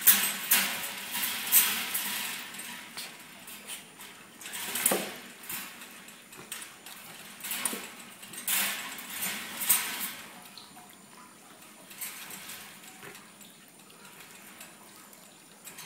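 Wire pet cage rattling and clinking in irregular bursts as a small dog moves about inside it with a rabbit, its claws scrabbling on the wire floor. The clatter is busiest in the first ten seconds and quieter after.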